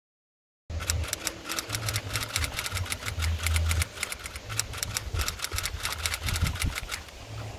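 Typewriter key clicks, about seven a second, over a low rumble, starting abruptly a little under a second in and stopping about seven seconds in.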